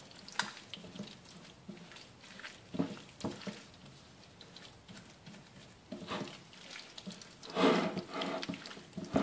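Wet squishing of lamb chunks being mixed by hand in an oily grated-onion and spice marinade, in short irregular bursts, loudest about three-quarters of the way in.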